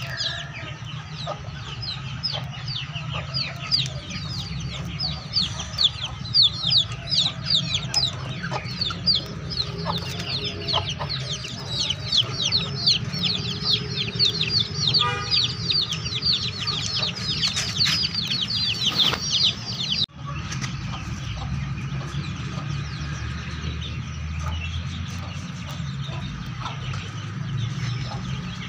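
Chickens: young birds peeping rapidly and continuously in short, high, falling calls, with clucks from the flock. The peeping cuts off suddenly about two-thirds of the way through, leaving quieter clucking.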